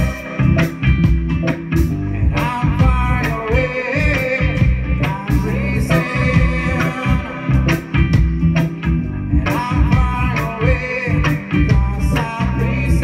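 Live roots-reggae band playing: a female lead vocal over electric bass, drum kit, electric guitars and keyboard, with a steady beat.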